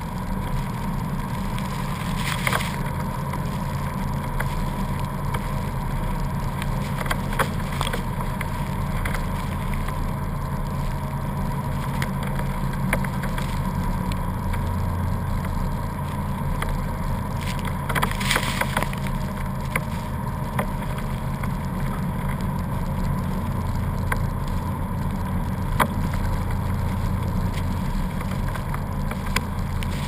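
Jeep Wrangler engine and drivetrain running as a low, steady drone while driving over a snow-covered road, picked up by a camera mounted outside on the hood, with wind noise over it. A few short bursts of noise break through, the strongest about two-thirds of the way through.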